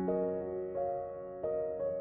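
Background piano music with a slow melody, a new note sounding every half second or so.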